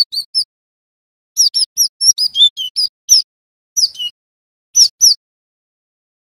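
Cinereous tit (gelatik batu) calling in quick runs of short, high, downward-slurred whistled notes, with pauses of about a second between runs. The longest run, about ten notes, begins about a second and a half in.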